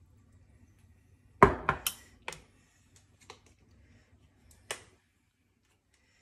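A quick run of four sharp clinks and taps a little over a second in, then two single taps later on: a small metal spoon knocking against a spice container and a ceramic mixing bowl as spices are spooned in.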